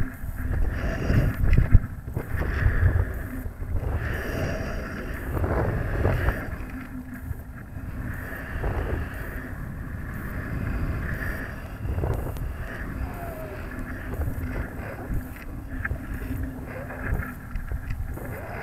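Wind rumbling and buffeting on the microphone of a camera riding in a weather balloon's payload, in uneven gusts that are strongest in the first few seconds and steadier after.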